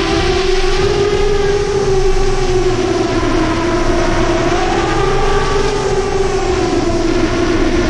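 7-inch FPV quadcopter's Brother Hobby 2507 1500KV motors and 7040 tri-blade props whining steadily in flight, the pitch rising and falling a little with throttle.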